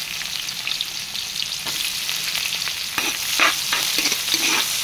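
Diced onion and garlic sizzling in hot oil in a wok, a steady frying hiss. From about three seconds in, a spatula stirs them, scraping the pan in short strokes.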